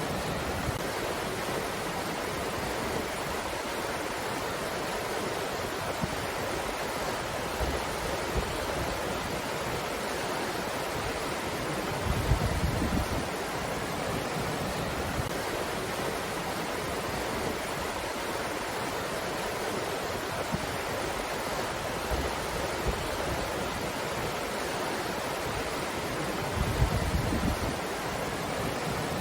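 Wind blowing in a steady rushing hiss, with two brief stronger low gusts, about twelve seconds in and near the end.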